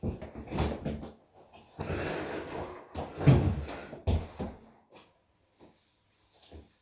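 A hard-shell suitcase being handled and opened: scraping and rustling, a long rasp about two seconds in, then a heavy thump a little after three seconds as the lid is swung open, followed by a few lighter knocks.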